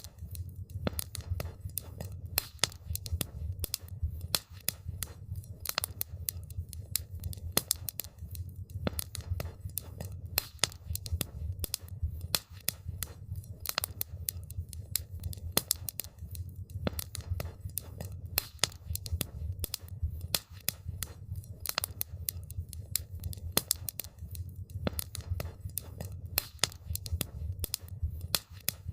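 Wood campfire burning with dense, irregular crackles and pops over a low steady rumble of the flames.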